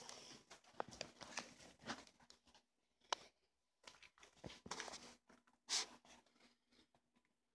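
Faint rustling and scattered light clicks of handling and movement. The loudest is a short rustle about three-quarters of the way through, with a sharp click near the middle.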